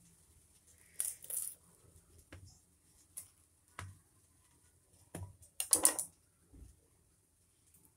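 Kitchen knife cutting through crisp, pan-toasted bread on a hard surface: a series of short crunching, scraping strokes and blade taps, the loudest cluster a little before six seconds in.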